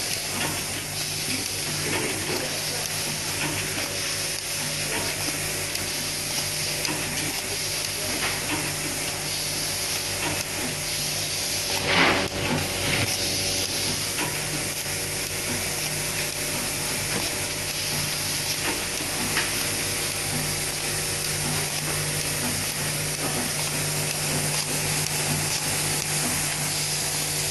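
Automatic cable tie gun cycling on wire bundles over a steady hiss and low hum, each cycle a short burst as it threads, tensions and cuts off a nylon tie; the loudest burst comes about twelve seconds in, with smaller ones around eight, thirteen and nineteen seconds.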